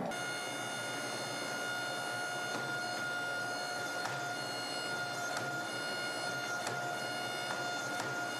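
Coal Iron Works 16-ton hydraulic forging press running, its pump giving a steady, unchanging whine with light regular clicks while it squeezes a red-hot steel bar.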